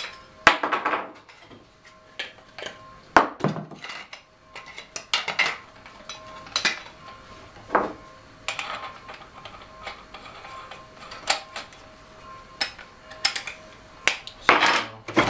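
Irregular metallic clinks and knocks of an angle grinder's disc being changed for a cutting disc: the flange nut worked loose and the metal discs handled. There is a close cluster of knocks near the end, and the grinder motor does not run.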